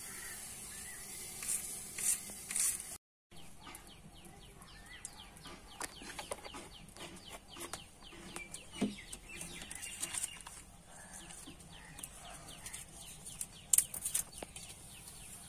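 A few sharp cuts of a bonti blade through onion, then hot oil in an iron kadai over a clay wood-fired stove crackling and spitting steadily, with a loud spit near the end as a bay leaf and a dried chilli are dropped into the oil.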